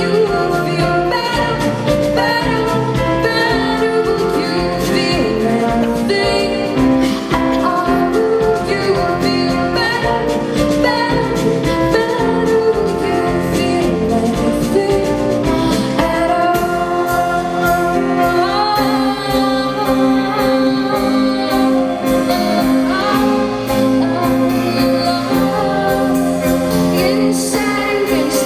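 Live music: a woman singing over grand piano, with cello and violin accompaniment.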